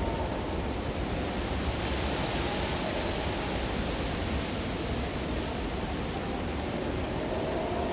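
Steady wind blowing, with a faint wavering howl and a hissy gust swelling about two to three seconds in.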